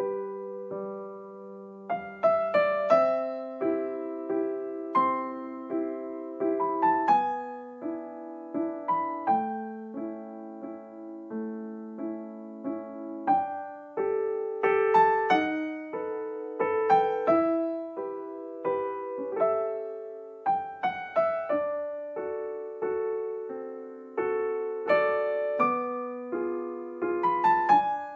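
Background piano music: a melody of separate notes and chords, each struck and then fading away.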